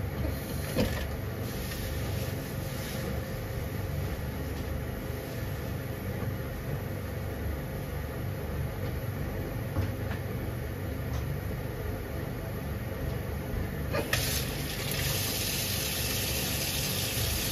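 Gas stove burner running steadily with a low rumble under a pan of water coming up to heat. About fourteen seconds in, a hiss rises as the water begins to simmer, with a few faint ticks along the way.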